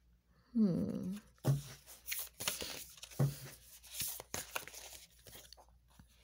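A deck of oracle cards being handled and shuffled by hand, a rustling, flicking sound of card stock sliding together, with a couple of soft thumps. A short hummed voice sound comes just before the shuffling.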